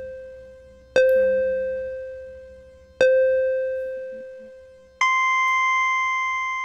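Bell-like chime tones, each struck once and left to ring and fade: the same low note sounds about a second in and again about three seconds in, then a higher note, about an octave up, rings out longer near the end.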